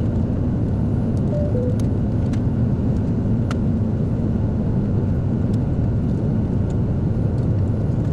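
Steady low rumble of a Boeing 757-200's cabin, the aircraft's air and systems noise, with a few faint clicks and a soft two-note descending tone about a second and a half in.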